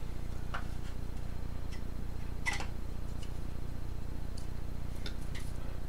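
A few light, scattered taps and clicks of small objects being handled, the loudest about two and a half seconds in, over a steady low hum.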